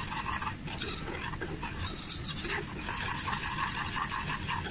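A spoon stirring thick palm sugar caramel with coconut milk in a metal saucepan on the heat, scraping round the pan.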